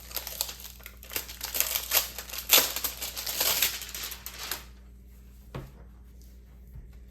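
Album packaging crinkling and rustling as it is handled and opened: a dense run of irregular crackles for about four and a half seconds, then much quieter with one faint click.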